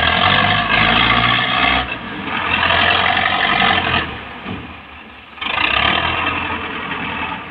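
Belarus tractor's diesel engine revving hard in three surges, with lulls between, as its front blade shoves against a mud-brick wall under load.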